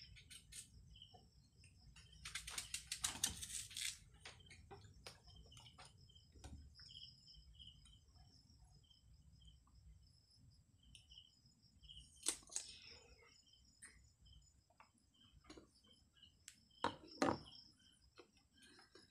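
Crisp crunching of firm, unripe Indian mango being cut and bitten: a dense run of crunches about two seconds in, then single crunches later. Crickets chirp faintly throughout.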